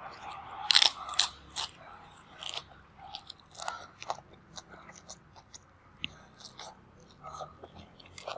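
A person biting and chewing fresh raw vegetables, close to the microphone: a few sharp crunches about a second in, then softer, irregular crunching.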